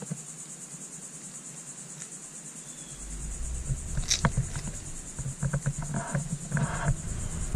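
Steady high-pitched chirring of insects. About three seconds in a low rumble comes in, with a sharp scuff and then several short scuffing steps of a rubber deck boot and a fabric slip-on shoe on concrete.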